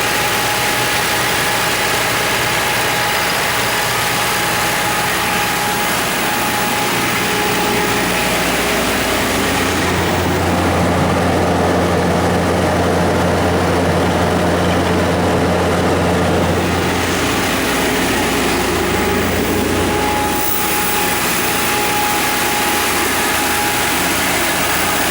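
Generac SD080 diesel generator set's Iveco/FPT 4.5-litre engine running steadily at its constant generator speed, with a steady hum and hiss. About ten seconds in, the sound turns deeper and less hissy for some ten seconds, then returns to how it was.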